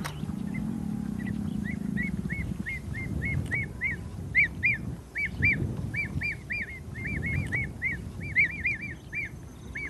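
A bird calling in a long, rapid series of short rising-and-falling notes, about three or four a second, over a low rumble.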